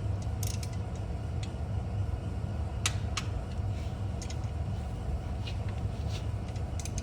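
Wrench working the header bolts, creaking, with a few sharp clicks (a pair about three seconds in), as the bolts are brought up to about 20 of torque. A steady low hum runs underneath.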